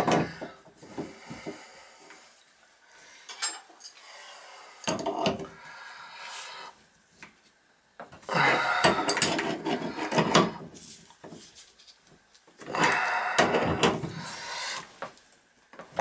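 Adjustable wrench gripping and working the stem of a Symmons tub/shower valve: metal scraping, rubbing and clicking in several irregular bouts, the two longest about halfway through and near the end. The stem is stuck and not wanting to come out.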